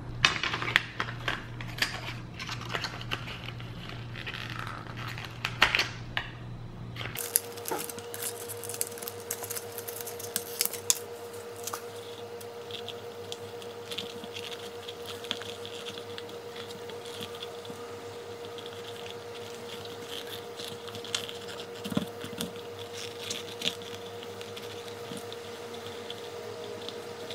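Crinkling and clicking of a plastic blister pack of shoe charms being handled. About seven seconds in, the sound changes to small scratches and clicks of rubber charms being pushed into the holes of a Crocs clog, over a steady hum.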